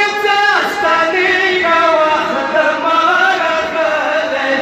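Male voices chanting an unaccompanied devotional recitation into microphones, in long held and gliding melodic lines.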